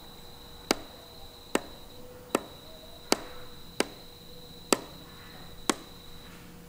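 Seven sharp plastic taps of a pen tip on a pool automation controller's touchscreen keypad, spaced unevenly about a second apart: a six-digit MSP code keyed in and confirmed.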